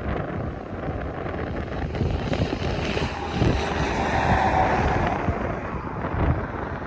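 Wind buffeting the microphone, gusting up and down, over the low rumble of a long freight train rolling past at a distance.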